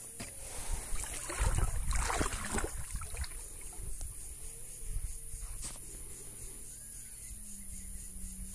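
Water lapping and sloshing against a kayak hull, with a few light knocks, busiest in the first three seconds and then settling; the outboard motor is not running.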